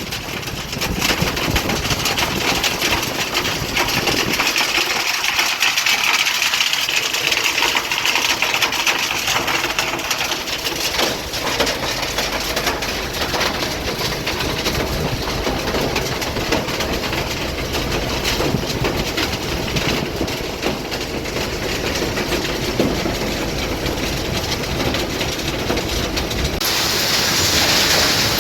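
Sand recycling plant machinery running: a steady mechanical din with dense rattling, like material tumbling over screens and conveyors. The sound changes abruptly near the end.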